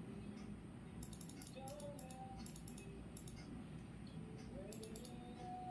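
Computer keyboard typing in short, irregular bursts of light clicks over a steady low background hum.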